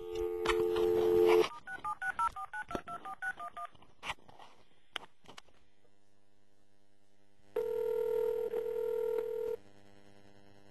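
Telephone dial tone, cut off about a second and a half in by a quick run of about ten keypad dialing beeps. Around eight seconds in, one ringback tone of about two seconds sounds on the line as the number rings.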